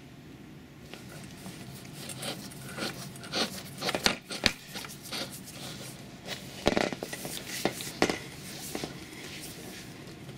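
Stainless steel pipe being screwed by hand into a stainless steel cross fitting: the taped threads rubbing and scraping, with irregular metal clicks and knocks.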